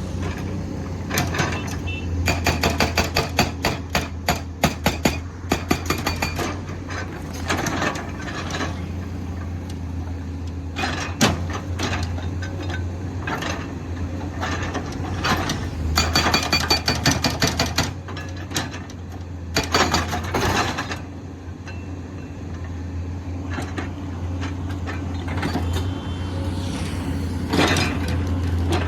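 Komatsu PC210 excavator's diesel engine running steadily while its hydraulic breaker hammers in several spells of rapid blows, the longest a few seconds long.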